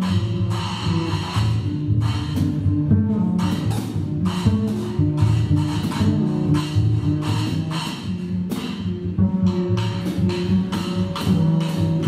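A double bass plays a busy, shifting low line while wooden drumsticks strike cymbals and drums in quick, irregular hits.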